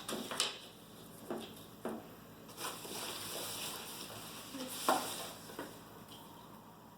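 Plastic packaging crinkling and rustling as it is handled, in short bursts with a longer crinkling stretch around the middle and a sharper crackle about five seconds in.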